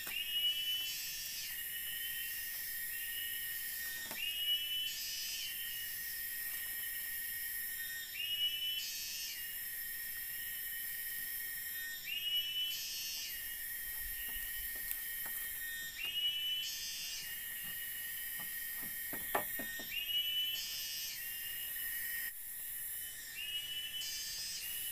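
Night forest ambience: a steady high-pitched insect drone and hiss, with a call that repeats about every four seconds, each a few quick rising chirps followed by a higher buzz.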